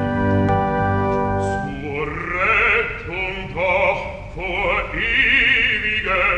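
Operatic music: the orchestra holds a sustained chord, then about two seconds in a bass voice begins singing with wide vibrato over the orchestra.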